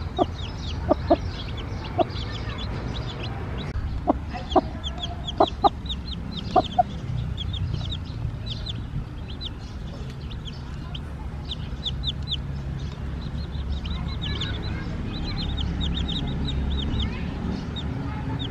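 Newly hatched chicks peeping steadily in short, high, falling notes. Over them the broody hen gives a handful of short, loud clucks during the first seven seconds or so.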